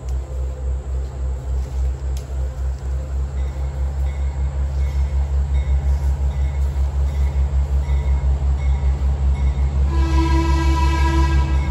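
Approaching train locomotive, a low rumble pulsing steadily and growing louder, then one long horn blast of several tones together near the end.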